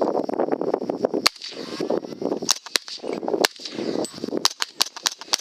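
Footsteps crunching through dry wheat, in a walking rhythm roughly once a second, with many sharp crackles and snaps of stalks.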